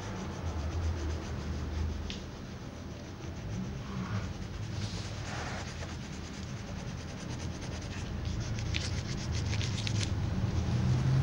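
Felt-tip pen scratching across paper as a child colours in, a run of quick back-and-forth strokes that come thickest near the end, over a low steady hum.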